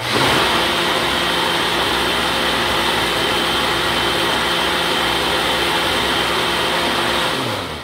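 Countertop blender motor running steadily at high speed, blending wheat with water into a batter, then winding down in pitch and stopping near the end.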